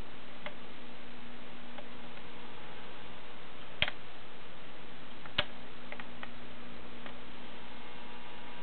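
Sharp clicks over a steady hiss and faint hum: two louder clicks about a second and a half apart near the middle, and a few fainter ticks scattered around them.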